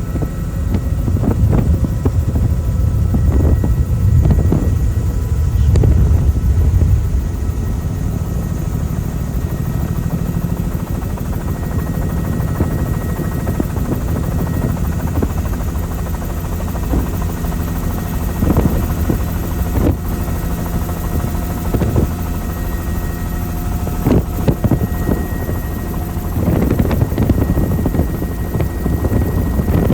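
Helicopter in flight: a steady drone of rotor and engine, with gusts of wind rumbling on the microphone that swell in the first several seconds and again near the end.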